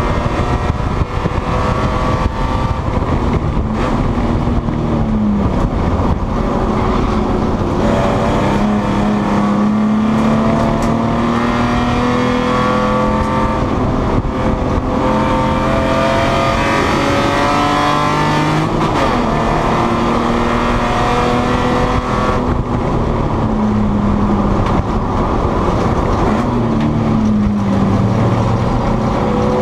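Spec E30 BMW race car's straight-six engine at racing speed, heard from inside the cabin. Its note climbs steadily, drops and climbs again several times as the car accelerates, shifts and slows for corners, over constant road and wind noise.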